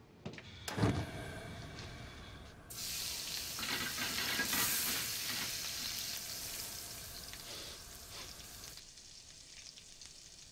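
Chopped aromatics sizzling in hot oil in a frying pan on a gas burner. The sizzle starts about three seconds in and dies away near the end. A single thump comes about a second in.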